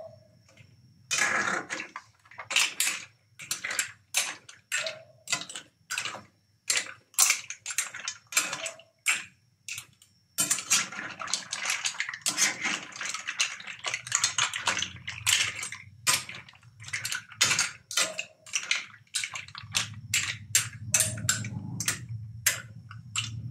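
Mussel shells clattering against each other and against a stainless steel pan as a metal ladle stirs and turns them, a dense run of sharp clicks and knocks. About ten seconds in, a steady hiss starts under the clatter, and near the end a low rumble joins it.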